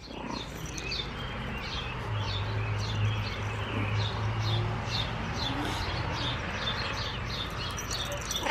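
A small bird chirping over and over, short falling notes about two a second, with a low steady hum underneath for a few seconds in the middle.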